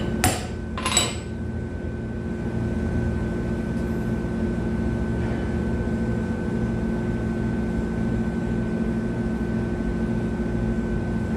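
Two short metallic clinks of tools or metal parts being handled in the first second, followed by a steady low machine hum with a faint constant whine.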